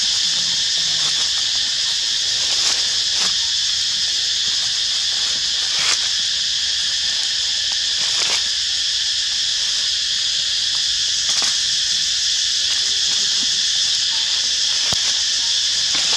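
Steady, high-pitched insect chorus droning without a break. Scattered short crackles of dry leaves rustle as young macaques tussle on the leaf litter.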